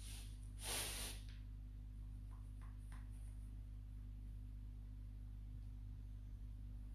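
White leather wedge slippers shifting on the feet: a brief scuffing rustle about a second in, then three faint light clicks, over a steady low hum.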